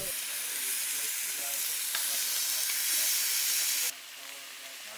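Steaks sizzling as they cook, a steady hiss that drops in level about four seconds in.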